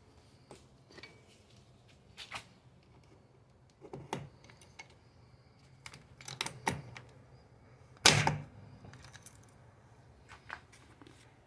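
Hand pop-rivet gun being squeezed to set a blind rivet in sheet metal: a series of separate sharp clicks and snaps, the loudest about eight seconds in.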